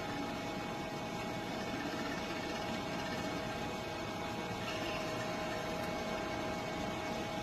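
Metal lathe running steadily while facing off the end of a steel rifle barrel blank: an even machine hum with a couple of steady whining tones.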